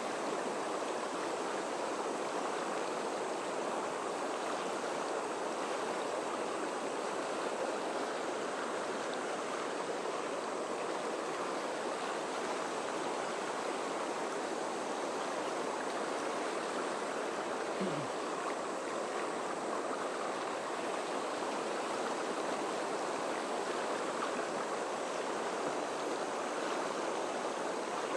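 Fast main-stem river rapids rushing steadily, whitewater churning over a rocky bed.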